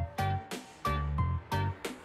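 Background music with a steady beat, bass and a changing melody.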